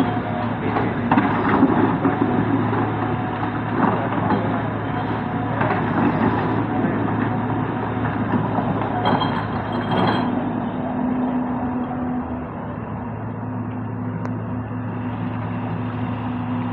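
Diesel engine of heavy earth-moving machinery running steadily. Knocks and clatter come over the first ten seconds or so, then settle into an even hum.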